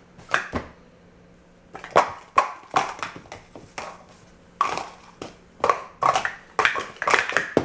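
Speed Stacks plastic sport-stacking cups clacking and sliding against each other as they are rapidly stacked into three-cup pyramids and collapsed back down on a mat, in quick irregular runs of sharp clicks.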